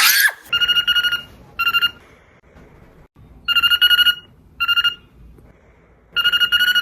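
A warbling telephone-style ring, repeating three times as a longer ring followed by a short one, opening with a brief loud rising squeal.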